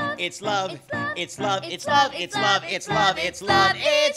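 A man and a girl singing a show-tune duet through stage microphones, in short, quick, separate syllables.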